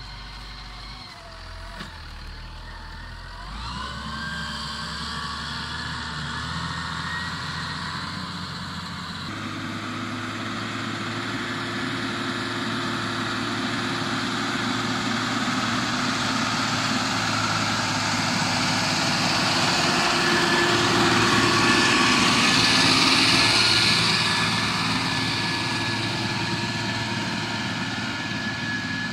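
Case IH 5140 tractor's diesel engine working steadily under load while pulling a plough through the soil. It grows louder as the tractor approaches, is loudest about three-quarters of the way through, then eases off, with abrupt jumps in the sound at about 4 and 9 seconds in.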